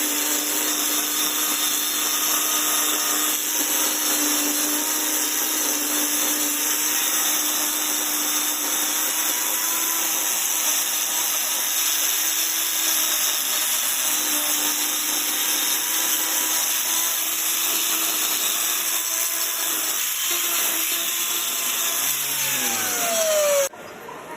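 A power tool running steadily, a motor hum under a loud hiss. Near the end its pitch falls as it slows, then the sound cuts off suddenly.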